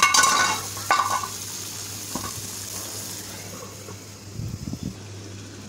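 Chicken curry bubbling and sizzling in an open black pan of oil and its own juices, with a few sharp metallic clinks in the first second or so.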